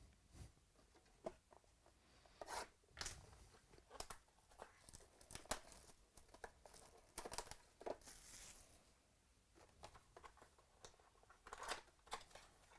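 Trading-card pack wrapper being torn and crinkled, with light clicks and slides of cards being handled. Faint, in scattered short bursts, with a longer crinkle about eight seconds in.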